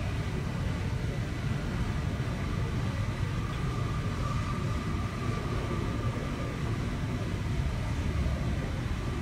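Swiss passenger train running at speed, heard from inside the coach: a steady low rumble of wheels on rails with a faint whine in the middle.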